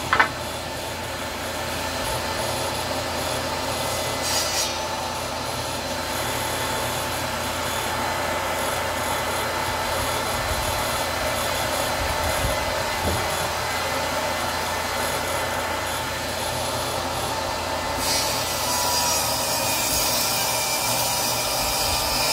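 Table saw running steadily, a whirring hum with a rasping edge from the oak being cut. A sharp knock comes just after the start, and the sound turns brighter and harsher about four seconds before the end.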